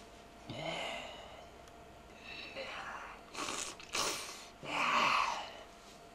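A person's breathy vocal sounds: about five short, noisy breaths, gasps and sniffs in a row, the loudest near the end.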